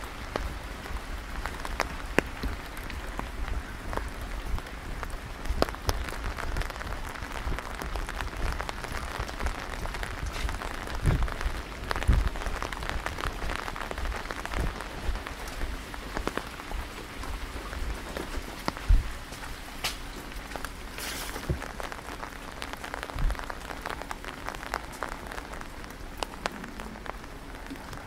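Steady rain falling, with many sharp ticks of close drops over an even hiss. There are a few low thuds, the loudest about 12 and 19 seconds in.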